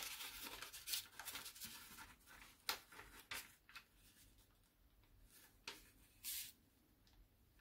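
A square sheet of paper being folded and creased by hand, faint: crinkling and rustling through the first two seconds or so, then a few separate sharp crinkles, the last one a little longer.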